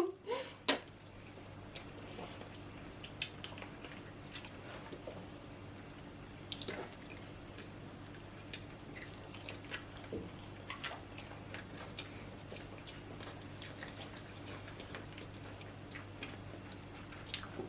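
Faint, wet eating sounds: soft chewing and small mouth clicks of people eating oatmeal fufu with soup, scattered irregularly over a steady low hum.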